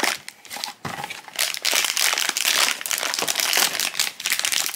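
Foil blind-box pouch crinkling as it is pulled out of its cardboard box and squeezed in the hands, loudest from about a second and a half in.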